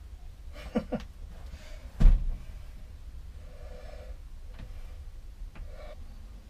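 Hands working a wire crimping tool while fitting a spade connector to a wire: quiet handling sounds, with two short sounds a little under a second in and one sharp knock about two seconds in.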